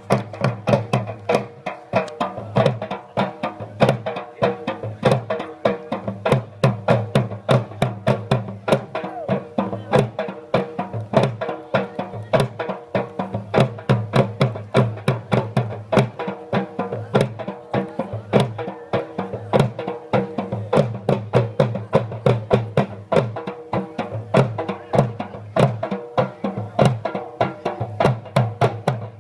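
Dhol barrel drums beating a fast, steady Pashtun dance rhythm of sharp stick strokes over a held droning tone.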